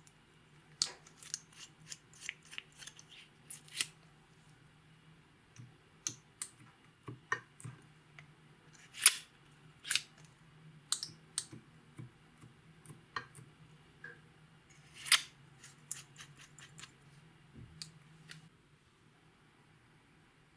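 Close-miked handling sounds of makeup and glitter being worked into clear slime: irregular sharp clicks and snaps, with the loudest about 9 and 15 seconds in, over a faint steady low hum.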